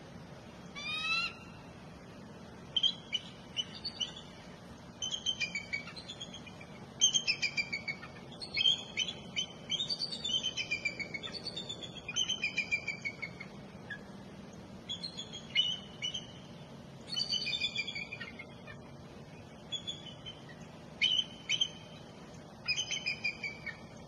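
Bald eagles calling: bursts of high, thin piping and chattering notes, each burst a quick series falling in pitch, repeated with short pauses between. A single rising whistle comes about a second in.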